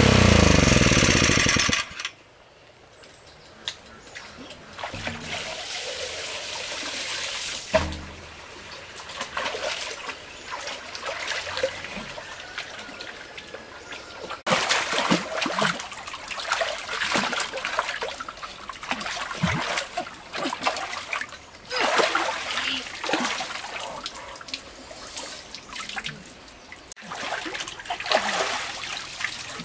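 An engine, likely the pump's motor, winds down and stops about two seconds in. Water then splashes and trickles unevenly, with louder bouts of splashing now and then.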